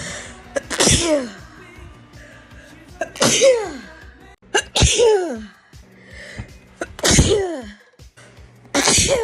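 A woman sneezing five times in a rapid series, each sneeze a sharp burst ending in a voiced 'choo' that falls in pitch, a second and a half to two and a half seconds apart.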